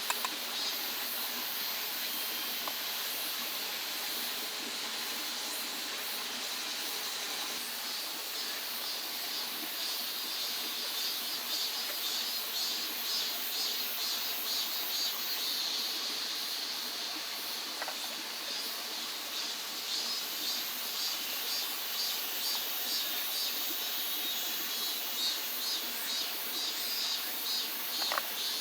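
Steady rushing of a mountain stream, with an insect's high, rapidly pulsing chirp that grows stronger about a third of the way in.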